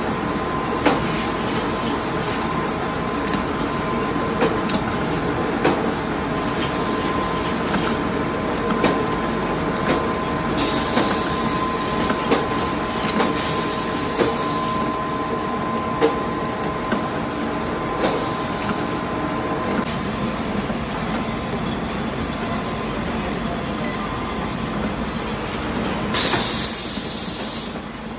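Water bottling and packing line running: a steady machine hum with a faint whine, irregular clicks and knocks of bottles on the conveyor, and several spells of hissing a few seconds long.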